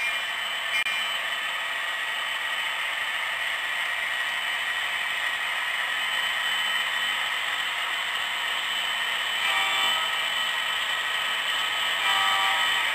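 HO scale model diesel locomotives running along the layout track, a steady mechanical whir and clatter from the models' motors and wheels, with a few brief tones near the end.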